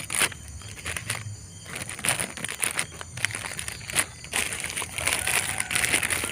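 Irregular rustling and crackling of leafy galangal stems being handled, with a steady high hiss behind it.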